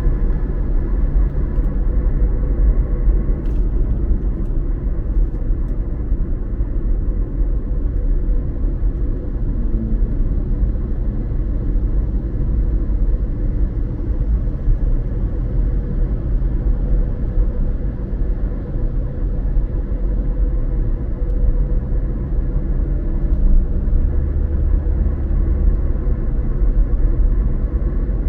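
Steady low road rumble and engine hum heard from inside a moving car's cabin.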